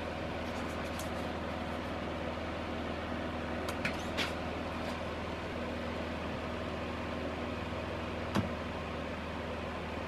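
Esperanza Mojave EHH002 electric fan heater running: the steady whir of its fan blowing, over a low motor hum. A few light clicks come through it, around four seconds in and again about eight seconds in.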